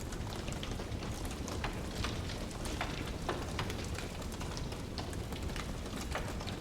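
Wood fire in a fireplace crackling: many irregular sharp pops and snaps over a steady low rumble.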